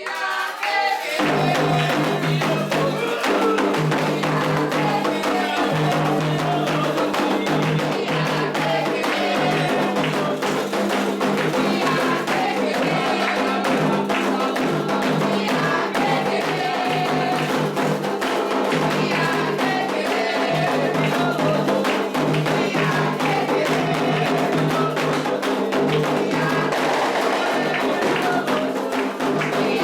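Candomblé ritual music: atabaque hand drums and a struck bell in a steady rhythm with group singing, starting about a second in.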